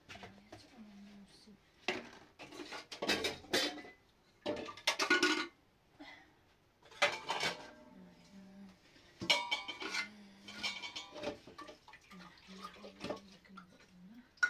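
Dishes, pots and metal utensils clinking and clattering as they are handled, in four or five separate bursts of clatter with quieter gaps between.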